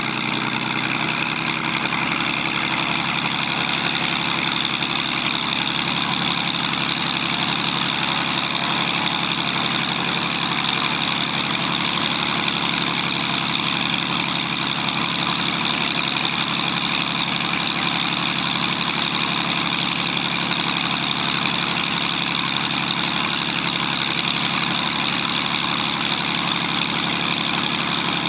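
Zlin Z-526F's Avia M137 six-cylinder inverted inline engine idling steadily, its propeller turning at low speed, during a ground engine run before takeoff.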